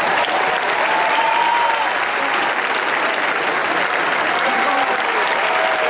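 Large arena audience applauding steadily, with a few voices calling out over the clapping.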